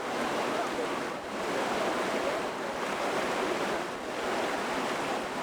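Waterfall's rushing water: a steady, unbroken noise.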